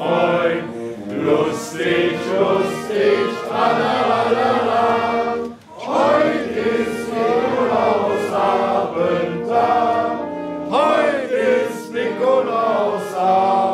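A group of men singing a Christmas song together, with a short break about halfway through.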